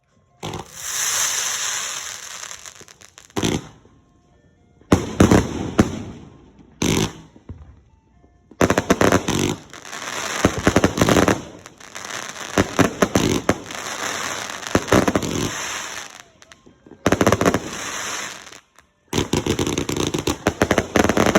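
Ground-level consumer fireworks going off in five bouts of dense crackling and hissing, each lasting one to several seconds, with short gaps between them.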